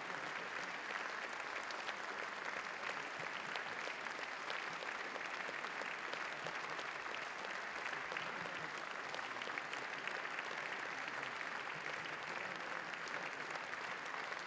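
Steady, sustained applause from a seated audience clapping their hands.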